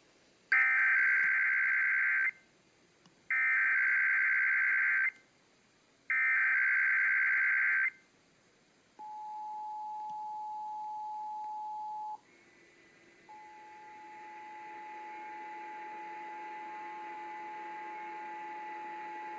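Emergency Alert System tones for a Required Monthly Test on FM radio: three loud bursts of the SAME digital header's data tones, each about two seconds long with a second's gap. Then a steady EAS attention tone starts, breaks off about three seconds later, and resumes, held to the end.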